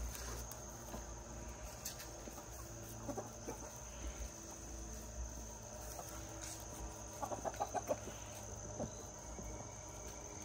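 Backyard chickens clucking, with a quick run of about seven clucks a little past seven seconds in.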